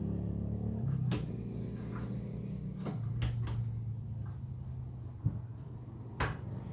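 Engine of a well-drilling machine running steadily, its note dropping about a second in, with several sharp knocks and clanks; the last and loudest comes near the end.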